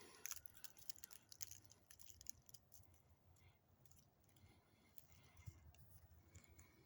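Near silence, with faint scattered clicks and crackles, most of them in the first two seconds or so.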